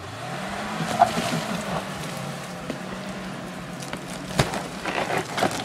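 A three-quarter-ton pickup's engine revs up over about a second and then holds at steady revs under load, pulling on a cable rigged to a heavy log. There is a sharp knock about four seconds in.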